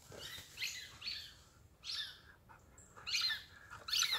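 Rubber squeaky toy ball squeaking in short, irregular squeaks as a Labrador retriever bites and chews it, with a quicker cluster of squeaks near the end.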